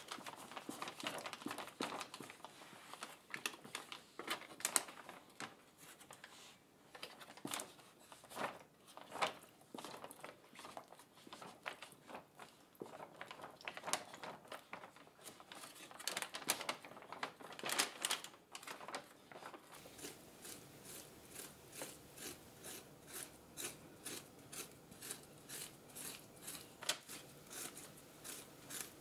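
Block of dry coco coir being scraped and crumbled by hand inside a plastic bag: fibres rustling and the bag crinkling in short scrapes. These are irregular at first, then settle into a steady rhythm of about two scrapes a second for the last third.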